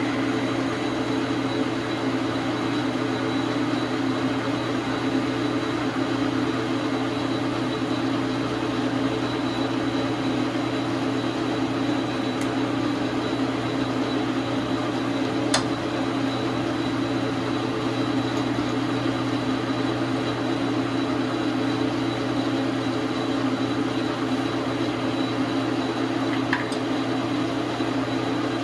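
Dar Sin 12 x 37 manual lathe running steadily: a constant motor and gear hum with a thin high whine over it. A sharp click about halfway through.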